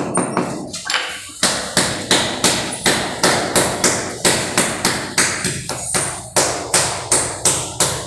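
Flat of a hand slapping a large wall tile, about three sharp taps a second, to bed it into the cement mortar spread on the wall.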